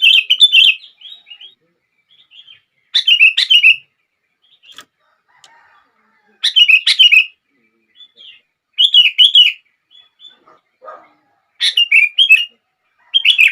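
Sooty-headed bulbul (kutilang) singing short whistled phrases of quick up-and-down notes, repeated about every two to three seconds, with faint chirps in between.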